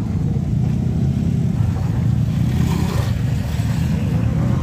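A motor vehicle's engine running steadily at low revs close by, a dense low rumble throughout.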